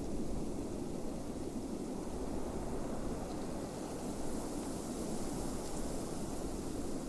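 Waterfall: a steady, unbroken rush of falling water, low and full.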